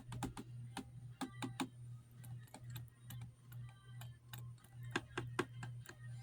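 Scattered light clicks and taps at uneven intervals, several clustered about a second in and again near the end, over a steady low hum.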